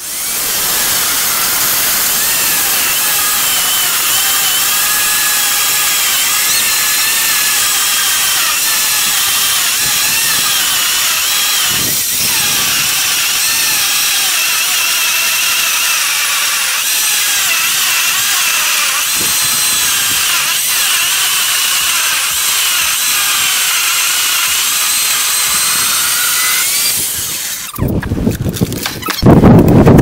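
Skil worm-drive electric saw driving a Prazi Beam Cutter chain bar, cutting lengthwise through a log at a steady pace. It makes a loud, high whine that wavers as the load changes. Near the end the cutting stops and there are a few loud knocks.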